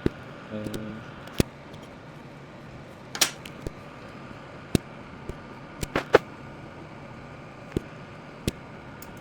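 Computer mouse clicking, single sharp clicks at irregular intervals of one to two seconds, with a quick pair about six seconds in, over a steady low hum of computer fans.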